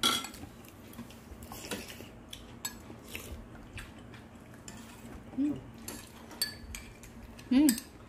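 Metal spoon and chopsticks clinking against ceramic bowls and an earthenware pot as people eat: a few separate sharp clinks, the loudest right at the start. Near the end a person gives a short hummed "mm".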